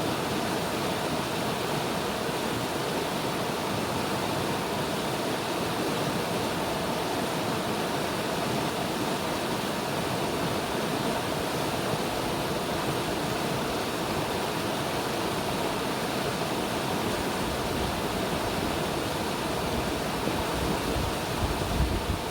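River water rushing steadily. Near the end, low gusts of wind buffet the microphone.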